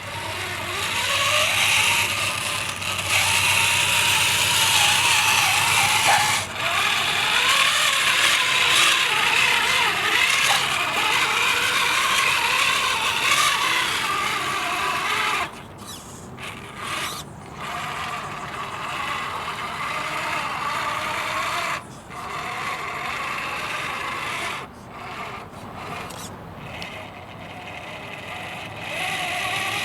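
Brushed 540 motor and geared gearbox of a 3D-printed RC crawler running under throttle: a whirring gear whine that wavers up and down in pitch with the throttle. It cuts out briefly several times in the second half.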